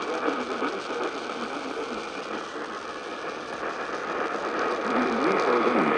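Noisy off-air radio reception: a steady hiss of static with faint, garbled speech underneath, getting a little louder near the end.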